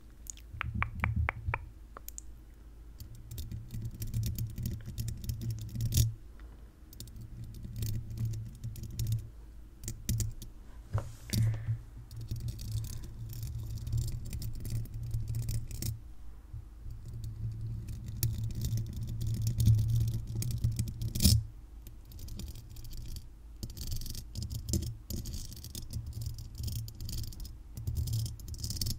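Paper clips worn as fingernails scratching and tapping on a microphone's metal mesh grille. There are many quick sharp clicks over a low rumble from the mic being handled, a few louder knocks, and a denser rasping scratch in the second half.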